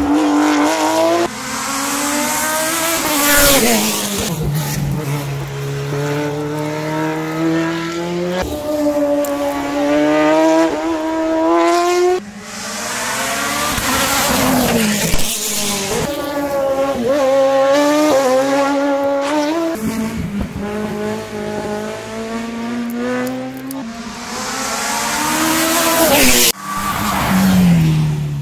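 Race car engines revving hard as one car after another accelerates past, the pitch climbing and dropping back at each upshift; several separate passes follow one another.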